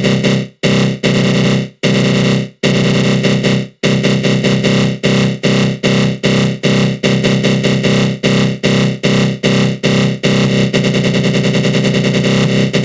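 Synthesized growl sound effect from a GMS synth with a flanger: a loud, buzzy tone that keeps cutting out and back in. The cut-outs come about once a second at first, then speed up from about four seconds in to a rapid stutter near the end.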